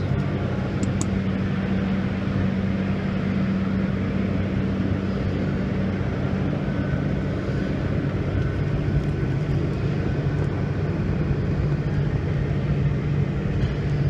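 Steady low hum of the 1997 Peterbilt 379 truck, heard inside the cab, with a faint high whine joining for a few seconds in the middle. There are a couple of faint clicks about a second in.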